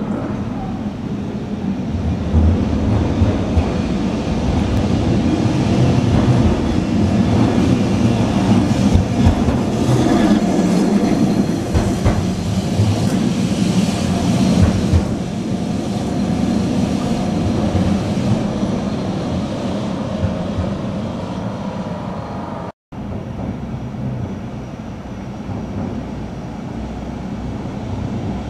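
A vintage two-axle Lisbon tram (Remodelado type) rumbling along its street rails. The sound grows loud as the tram passes close, then fades as it moves away. After a brief break in the sound, another tram is heard approaching more quietly.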